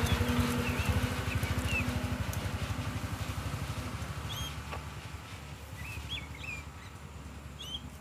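Truck engine running with a low rapid pulsing, fading steadily as the truck drives away. Short high bird chirps sound over it, several of them in the second half.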